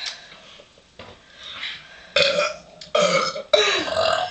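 Loud burps, three in quick succession starting about two seconds in, the last one the longest and falling in pitch: belches brought up by drinking soda pop.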